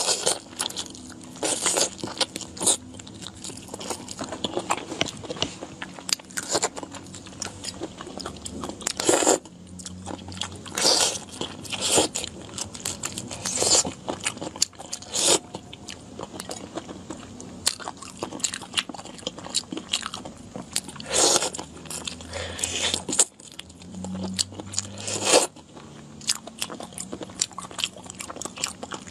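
Close-up mouth sounds of eating whole shell-on prawns: sharp bites into the shells every second or two, with quieter chewing and sucking between them.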